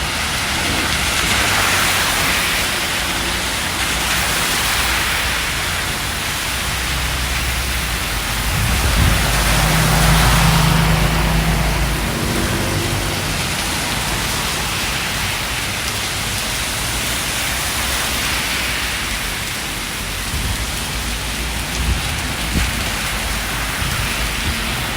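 Steady rain falling, with a low rumble rising and fading from about nine to twelve seconds in.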